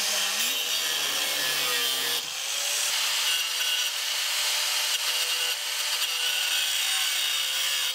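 Small handheld rotary tool with a cutoff wheel grinding through metal, a steady high-pitched whir and hiss that eases briefly about two seconds in. It is cutting off metal pieces that stick out and get in the way.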